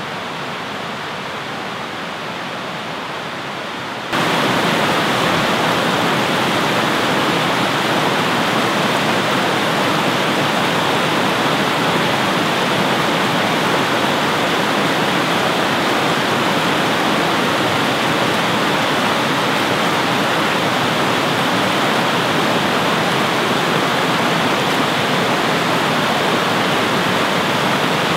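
A small waterfall's white water cascading over rocks: a steady rush. About four seconds in it jumps suddenly louder and brighter, heard from right beside the cascade.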